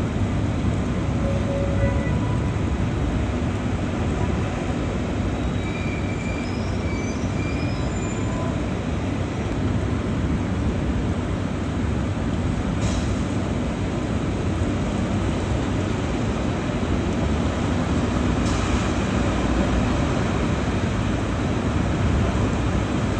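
Heavy rain falling in a steady rush, with a deep continuous rumble underneath.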